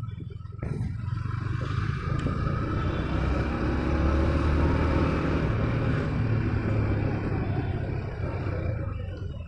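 Yamaha motorcycle engine pulling in third gear as the bike speeds up, with rushing wind noise. The sound gets louder about half a second in and eases off near the end.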